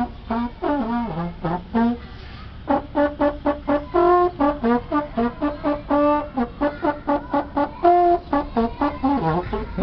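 Music led by a brass instrument, playing a run of short, detached notes with a brief pause about two seconds in.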